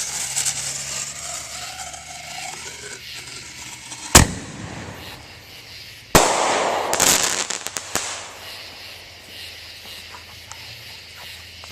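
Backyard firework mortar shell going off. The lit fuse hisses and sputters, then there is a sharp bang as the shell launches from its tube about four seconds in. About two seconds later the shell bursts with a loud report and a crackling tail.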